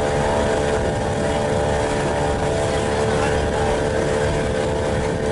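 Motorboat engine running steadily, a constant hum with a steady tone over rushing water and wind noise.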